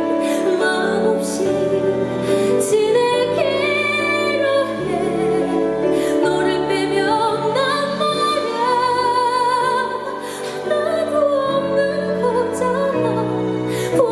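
Live performance of a slow ballad: a woman sings a melody with vibrato over band accompaniment with held low bass notes.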